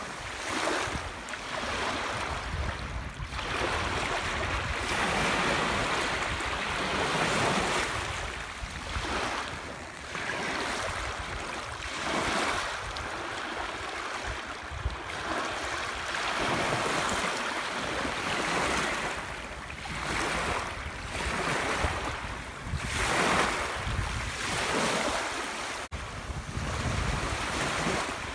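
Small waves breaking and washing in over a stony beach, the rush swelling and fading with each wave every couple of seconds.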